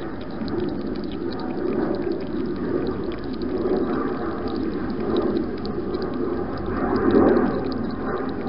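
Wild hedgehog lapping water from a bowl close to the microphone: a continuous run of wet lapping and slurping with small clicks, swelling a little about seven seconds in.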